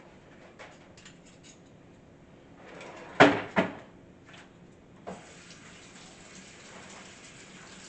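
Kitchenware clattering: two loud clanks close together about three seconds in and a lighter click, then a tap running steadily.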